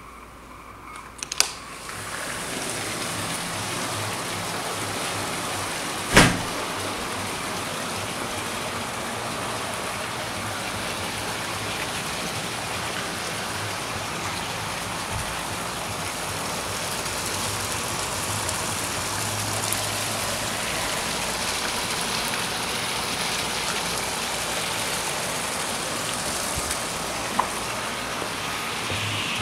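Steady rain falling, an even hiss that sets in about two seconds in, with a sharp click just before it and one loud knock about six seconds in.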